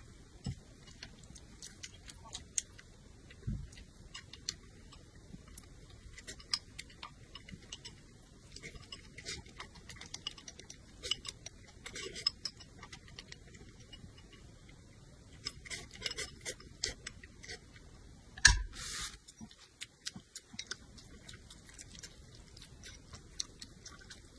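Close-up eating sounds of noodles: many short wet clicks of chewing and smacking, with brief slurps. About 18 seconds in comes a sharp thump, followed by a short hissing slurp.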